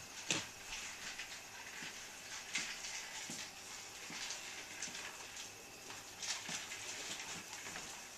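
Felt-tip marker scribbling back and forth on a whiteboard easel: a faint scratchy rubbing in quick, irregular strokes, with a few soft knocks.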